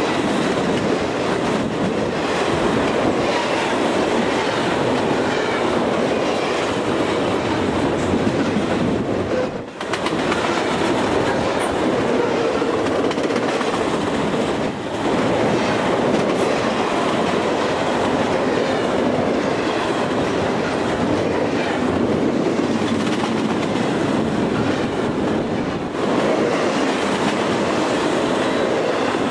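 Double-stack container well cars of a freight train rolling past, a steady loud noise of steel wheels on rail. The noise dips briefly twice, about ten and fifteen seconds in.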